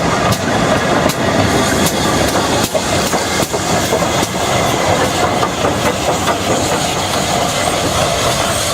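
Double-headed steam train running, a loud steady rush with repeated sharp clicks scattered through it.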